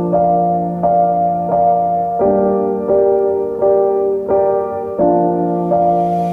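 Background music: a soft electric-piano or keyboard melody playing chords, a new chord struck about every 0.7 seconds.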